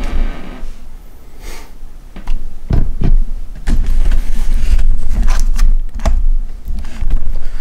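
Camera handling noise: rubbing and a low rumble with many clicks and knocks as the camera is picked up and turned around. It gets louder about two seconds in.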